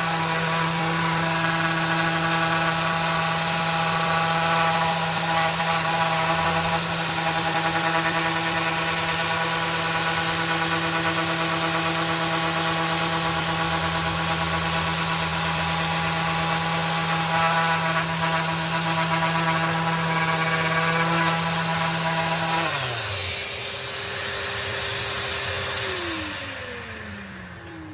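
Maxxt 5 mm stroke orbital sander running steadily while sanding a wooden board. Near the end it is switched off, and its pitch falls as the motor winds down.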